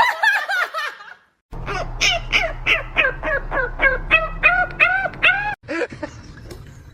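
An animal giving a quick run of short, pitched calls, about three a second, over a steady low hum.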